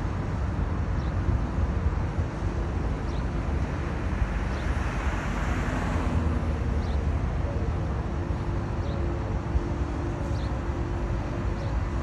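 Road traffic noise with a steady low rumble; a vehicle passes, swelling about halfway through. Faint high chirps come every second or two.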